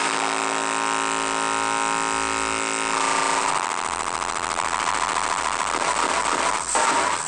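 Live electronic music: a steady buzzing synth drone, held for about three and a half seconds, gives way to a fast, low pulsing beat.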